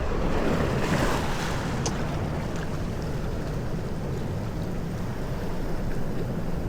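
Sea surf washing steadily, swelling briefly about a second in, with wind rumbling on the microphone.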